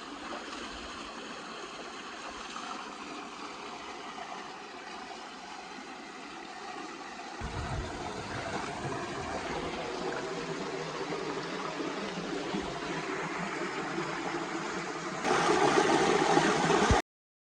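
Stream water flowing and gurgling over rocks, a steady rushing. A low rumble joins about halfway, and the water gets much louder near the end before cutting off abruptly.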